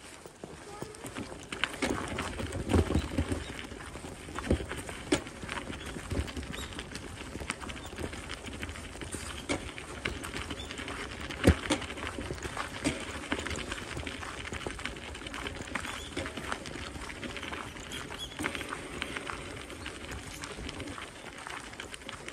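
Footsteps on a dirt path strewn with dry fallen leaves, irregular steps over a steady outdoor background hiss.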